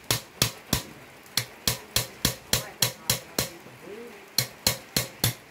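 A hammer striking metal in a steady series of hard blows, about three a second, with a short pause a little after three seconds before four more blows. This is mechanic's work on a Mitsubishi Canter truck, knocking a part loose.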